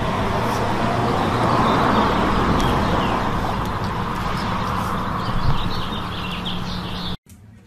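Steady outdoor background rush, with small birds chirping in the second half; it cuts off suddenly near the end.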